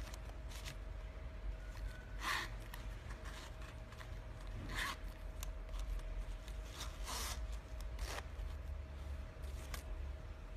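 Hands handling a Baellery cowhide leather zip wallet: light rubbing and rustling of the leather, with three short scraping swishes about two, five and seven seconds in, and a few small clicks.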